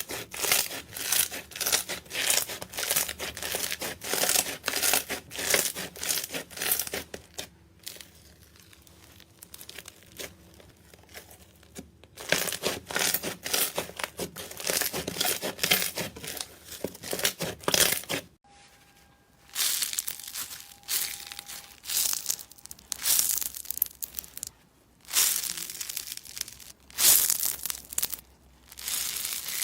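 Slime being squeezed and stretched, with dense crackling, popping and crinkling clicks in uneven bursts. The sound cuts off abruptly and resumes a few times, about 7, 12 and 18 seconds in.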